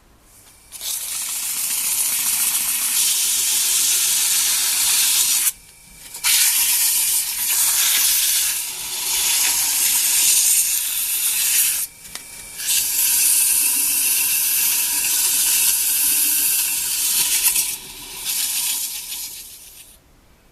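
Marbles rolling and clattering along a marble run machine: a dense, continuous rattle that stops briefly three times and fades out near the end.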